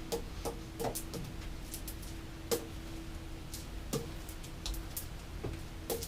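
Devil sticks being played: light, irregular clicks and taps as the hand sticks strike the centre stick, about one or two a second.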